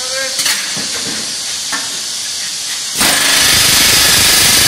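Gas torch hissing steadily as it heats a steel rivet red-hot, with a couple of metallic clinks near the start. About three seconds in, a pneumatic rivet gun starts hammering the hot rivet, a loud, rapid rattle, setting it into a locomotive's steel running plate.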